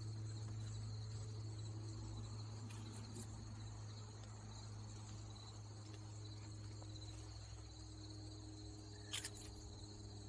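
Steady high-pitched chorus of crickets, over a constant low hum, with two short sharp clicks about nine seconds in.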